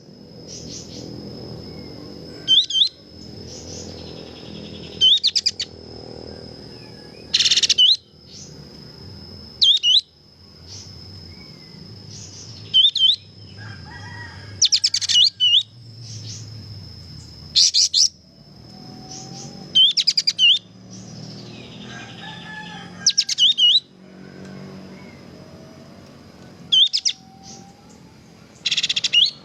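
Kapas tembak bulbul singing in loud short bursts of quick whistled notes, about one burst every two to three seconds, over a steady high whine and a faint low background rumble.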